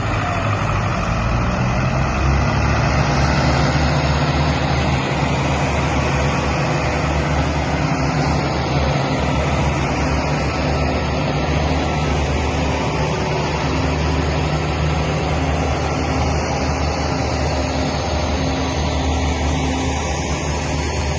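A vehicle engine running steadily with a low, even hum under a broad rushing noise.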